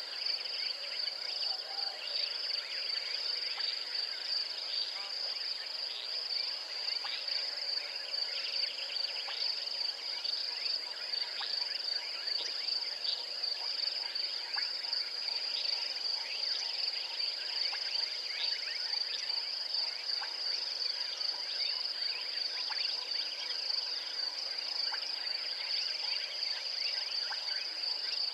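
Outdoor insect chorus: a continuous high-pitched trill, with many short chirps and calls scattered through it.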